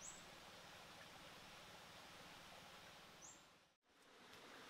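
Near silence: faint outdoor background hiss with two brief, high, rising chirps, one at the very start and one about three seconds in. The sound cuts out completely for a moment near the end.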